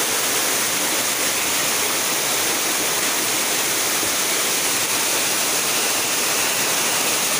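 Strong floodwater current rushing, a loud, steady, unbroken sound of running water.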